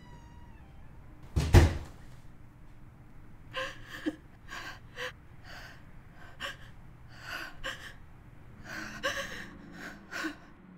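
A front door slams shut with one loud bang about a second and a half in. A woman then sobs in short, broken, gasping breaths.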